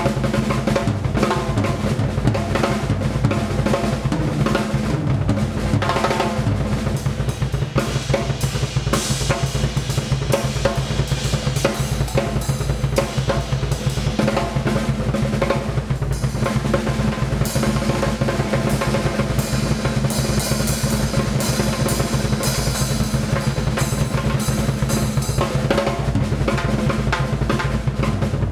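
Drum solo on a Pearl drum kit: fast, continuous rolls and fills across snare, toms and bass drum, with cymbals crashing, growing busier from about a third of the way in.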